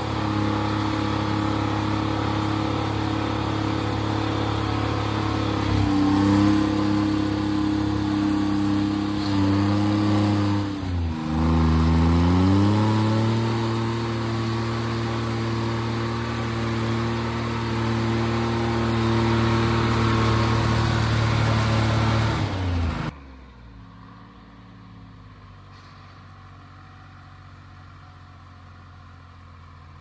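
Timberjack skidder's diesel engine running steadily, its pitch dipping and coming back up about eleven seconds in. About three quarters of the way through the sound drops suddenly to a much fainter engine hum.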